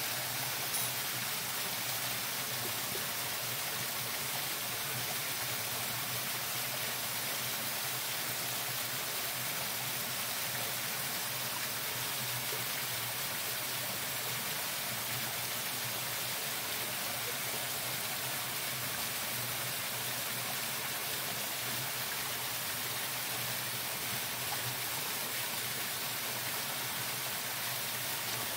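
Steady rush of a mountain stream, an even wash of water noise that holds the same level throughout.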